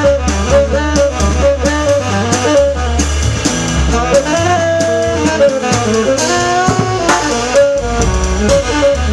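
Small jazz group playing rhythm changes: a tenor saxophone plays a fast melodic line over upright bass and a drum kit played with sticks on the snare and cymbals.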